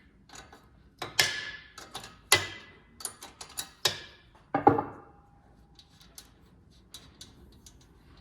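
Irregular metallic clicks and clanks of a wrench and socket working the front strut's nuts and bolts, a few ringing briefly, with the heaviest clank a little before halfway; after that only faint scattered ticks of metal on metal.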